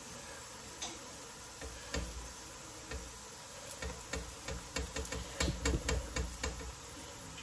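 A paratha cooking on a hot tawa, with a steady low sizzle. Over it comes a run of irregular clicks and light knocks from a spatula turning and pressing it, growing busier from about two seconds in.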